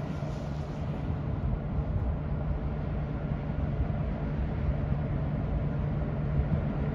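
Approaching diesel freight locomotives, led by an EMD GP38-2 with its 16-cylinder two-stroke engine, giving a steady low rumble that grows slowly louder as they near.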